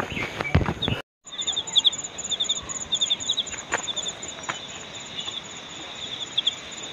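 Insects chirping in rapid, even pulses at two high pitches over a steady outdoor hiss, with a few sharp clicks. It starts with a second of footsteps on the trail, then the sound cuts out briefly before the chirping begins.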